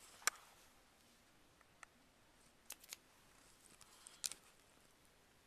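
Near silence broken by a handful of short, sharp clicks, a pair of them close together in the middle and the loudest near the start.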